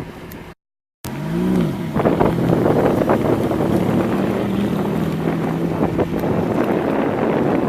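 Ferrari F430 Spyder's V8 engine running at a steady pitch after a short rev, with heavy wind noise on the microphone. The sound cuts out to silence for about half a second near the start.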